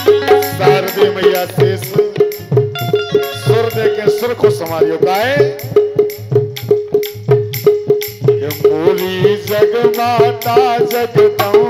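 Live Indian folk music: fast, steady percussion with drum strokes and rattling jingles over a held drone, under a melody that wavers in pitch.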